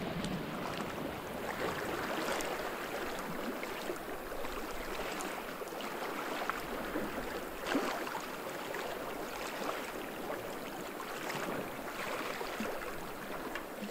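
Steady wash of small waves on a rocky lake shore, mixed with wind.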